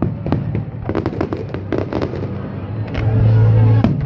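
A fireworks display: aerial shells bursting in quick succession, with sharp bangs and crackling. Near the end a louder low rumble lasts for about a second.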